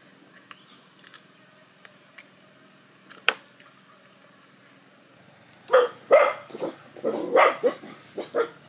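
A dog barking, a quick run of about seven short barks in the last three seconds, after a single sharp click about three seconds in.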